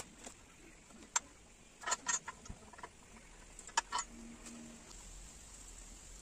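Faint scattered clicks and taps, some in quick clusters, with cloth rustling, as a painted statue is handled and unwrapped from its cloth wrapping. A faint steady high hiss runs underneath.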